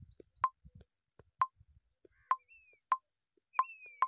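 Phone touchscreen tap sounds: six short, sharp clicks at uneven gaps of about half a second to a second as buttons are tapped over and over. A faint high chirp falls in pitch twice in the second half.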